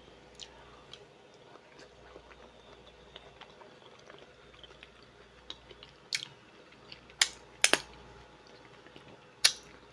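A person chewing food close to the microphone: quiet at first, then a few sharp mouth clicks and smacks in the last four seconds.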